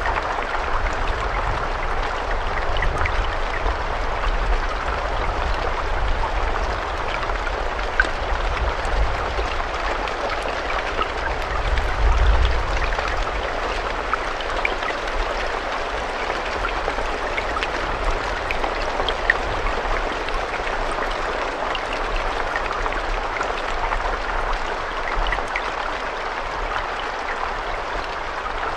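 Steady rain, with scattered small drop ticks over an even hiss and a low rumble underneath that swells briefly about twelve seconds in.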